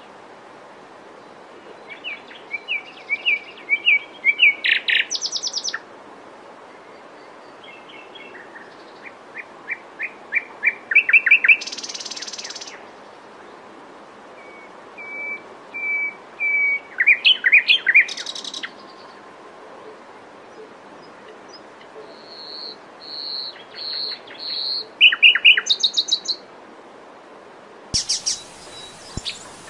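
Common nightingale singing: separate phrases of repeated notes, fast trills and clear whistles, with pauses of a second or two between them. About ten seconds in, one phrase is a run of repeated notes that grows louder.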